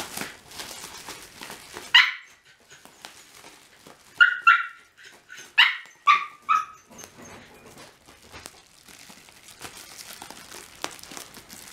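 Shiba Inu giving short, high-pitched yips and whines: one about two seconds in, then a quick run of five more a couple of seconds later. Faint rustling of plastic bubble wrap being handled underneath.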